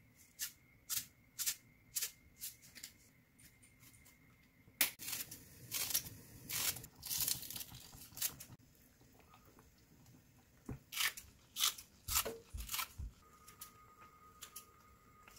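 Kitchen scissors snipping through thick green onion (daepa) stalks, in runs of short crisp cuts: a few evenly spaced snips, then a dense flurry in the middle, then more snips near the end.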